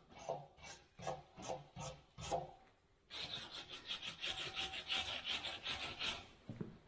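Rasping, scraping strokes by hand: a few slow, spaced strokes, then about three seconds of fast, continuous back-and-forth rasping.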